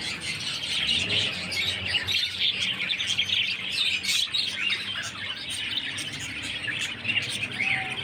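Many caged small parrots, lovebirds and budgerigars among them, chirping and chattering all at once in a dense, continuous chorus.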